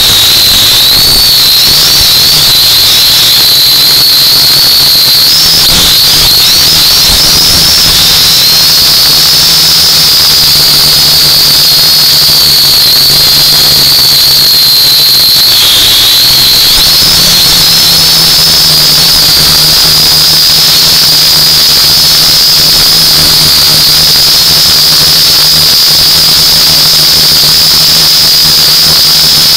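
U818A-1 quadcopter's motors and propellers, recorded through the drone's own onboard microphone, giving a loud high whine over a low hum. The pitch wavers as the drone manoeuvres and steps up slightly about sixteen seconds in.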